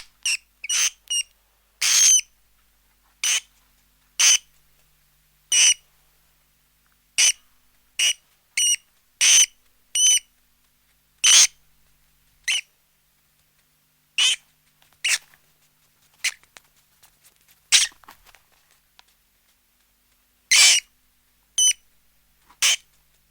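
Mice squeaking: about twenty short, high-pitched squeaks, some single and some in quick pairs, with gaps of up to a couple of seconds between them. A few faint ticks come between squeaks a little past the middle.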